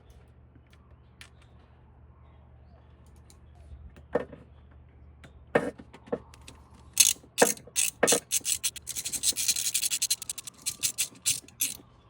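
Hand ratchet wrench clicking as fasteners are turned: a few separate clicks and knocks, then a fast run of ratchet ticks for a couple of seconds, with a few more clicks near the end.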